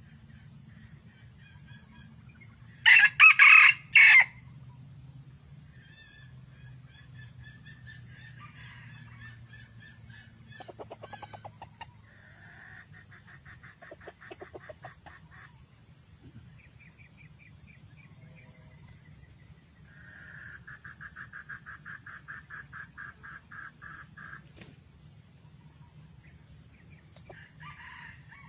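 A junglefowl rooster crows once, a short, loud, choppy crow about three seconds in, over a steady high insect drone. Softer, rapidly pulsing calls follow later.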